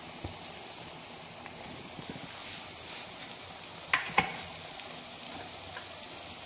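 Grated ginger and garlic sizzling steadily in hot mustard oil in a kadhai, cooking off their raw smell. Two sharp knocks close together come about four seconds in.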